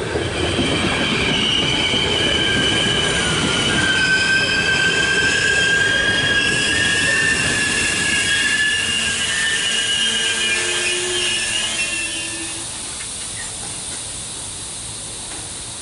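A regional passenger train of locomotive-hauled coaches rolls in close by and slows, its wheels squealing with several high, wavering tones over the rumble of the wheels. The squeal and rumble stop about twelve seconds in as the train comes to a stand, leaving a quieter steady hiss.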